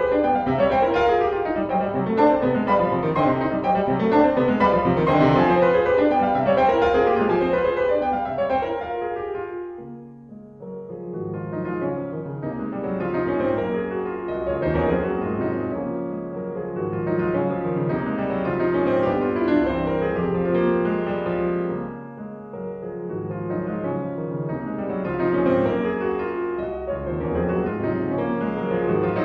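Background piano music, a busy run of quick notes that dips briefly twice between phrases.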